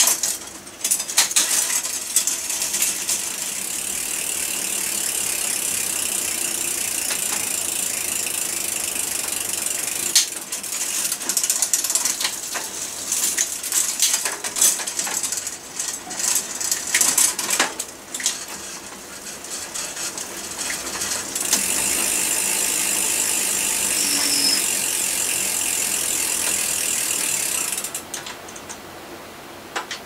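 Saracen Raw mountain bike's rear freewheel ticking rapidly and steadily as the back wheel spins, in two long runs that stop suddenly near the end. Between the runs come irregular sharp clicks and clatter from the drivetrain.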